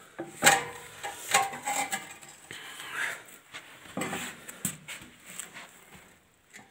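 Rusty steel parts of a fertilizer spreader's cardan driveshaft clanking and knocking together: about half a dozen irregular metallic hits with a short ring, the loudest about half a second in.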